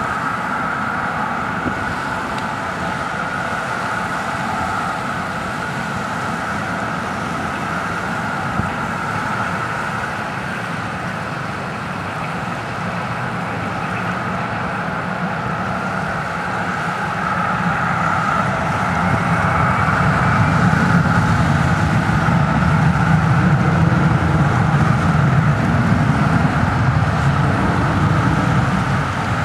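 Jet airliner engines running on the runway: a steady whine over a noisy roar, with a deeper rumble swelling in about two-thirds of the way through.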